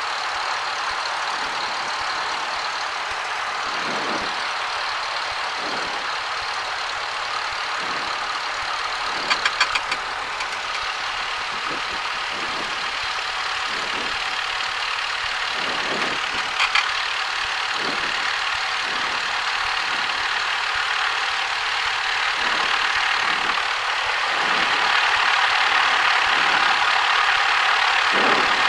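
Cessna 172 engine and propeller running steadily at low taxi power, heard inside the cockpit as a dense hiss-like drone, with soft thumps every second or two and a few brief clicks. It grows a little louder near the end.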